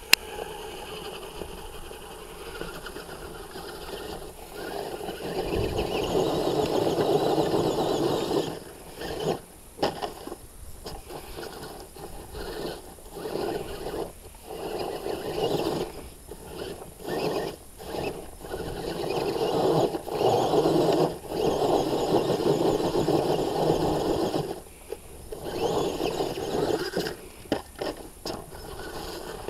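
Electric HPI Wheely King RC monster truck's motor and gears whining in start-stop bursts as the throttle is worked, with the tyres scrabbling on loose dirt and stones while it tries to crawl up the slope. The longest runs come about five seconds in and again around twenty seconds in, with a sharp click at the very start.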